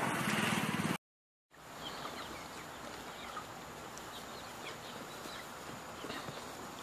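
A louder rushing noise cuts off abruptly about a second in. After a brief silence, chickens peep and chirp in short falling calls over a steady hiss.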